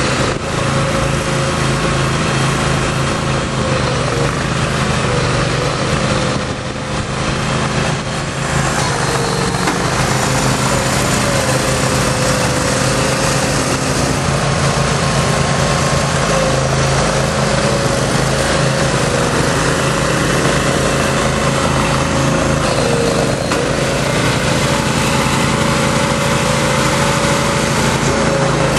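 Small engine of a compressed earth block press running steadily under load, with a brief dip in level about seven seconds in.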